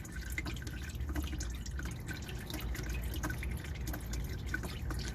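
Irregular drips of drained automatic transmission oil falling into a catch pan, over a low steady hum.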